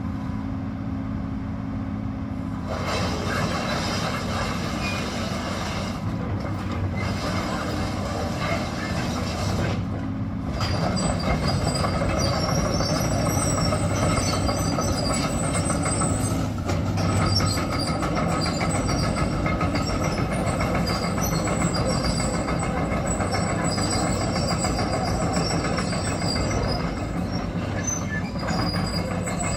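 Kobelco SK235SRLC excavator's 5.8 L six-cylinder diesel idling steadily, then from about three seconds in the machine works and travels on its steel tracks: engine under load with a dense track clatter and high squealing tones that run on to the end.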